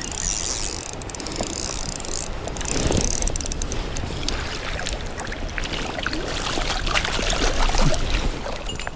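Shimano Vanford spinning reel ratcheting with rapid clicks while a trout is played on light line, over low rumble from wind or handling on the microphone.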